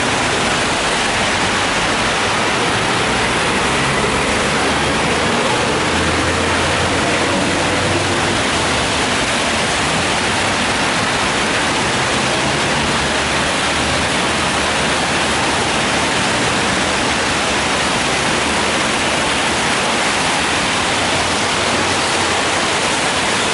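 Steady hiss of falling rain, with traffic passing on the wet road.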